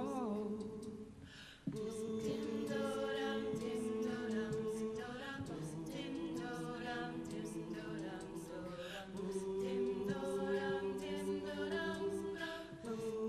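A cappella group singing wordless sustained chords over a steady beat of vocal percussion, coming back in sharply after a brief dip about a second and a half in.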